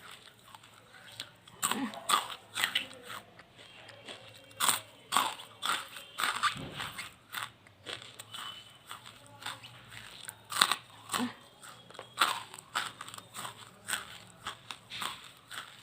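A person biting into and chewing charcoal: irregular sharp, brittle crunches with short pauses between them.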